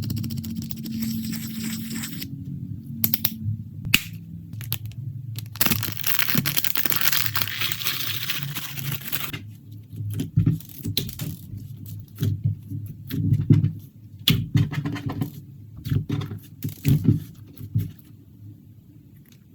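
Clear slime being mixed and squished, with crackling and popping clicks from trapped air. There is a dense run of crackle from about six to nine seconds in, then scattered pops.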